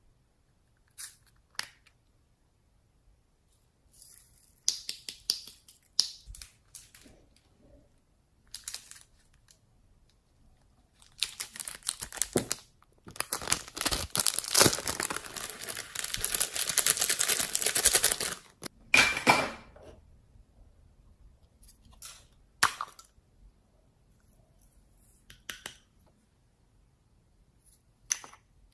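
Slime being squeezed and stretched by hand: scattered sticky pops and clicks, with a long stretch of dense crackling in the middle.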